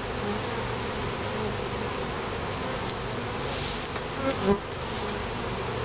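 Honeybee colony buzzing steadily around an opened top-bar hive, with a brief louder buzz about four and a half seconds in.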